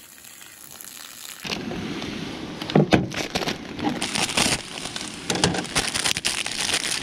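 Beef and red onions sizzling in a frying pan on a propane camp stove, starting about a second and a half in, with a few knocks around the middle. From about four seconds in, a plastic instant-noodle packet crinkles as it is cut open and handled.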